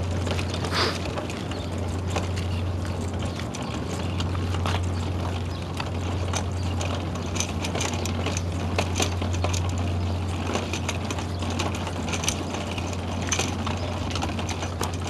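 A steady low hum with irregular light clicks and ticks over it, mechanical in character. No call to prayer or voice can be heard.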